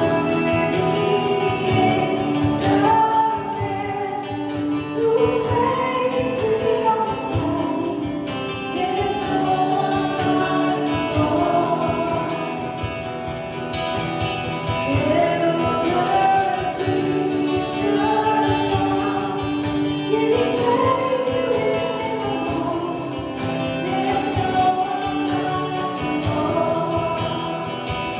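Gospel worship music: voices singing together over instrumental accompaniment with a steady beat.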